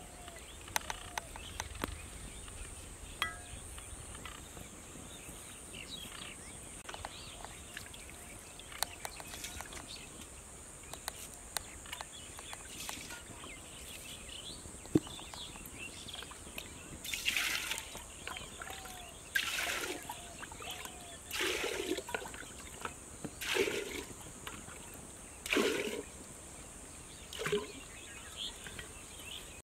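Water scooped and poured out of small metal pots, splashing six times about two seconds apart in the second half.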